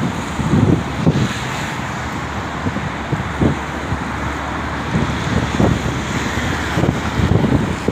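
Steady traffic noise from a multi-lane city road, cars driving past, with irregular gusts of wind buffeting the microphone.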